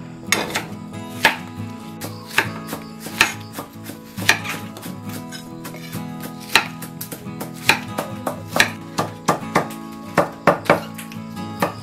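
Kitchen knife cutting an onion into wedges on a wooden chopping board: sharp knocks of the blade striking the board, about one a second, coming faster near the end. Soft background music runs underneath.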